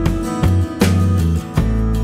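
Background music with strummed guitar over steady bass notes and a regular beat.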